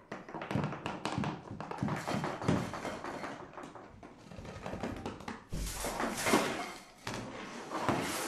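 Hand-made foley sound effects: a quick, irregular run of taps and knocks, with a heavier thud about five and a half seconds in.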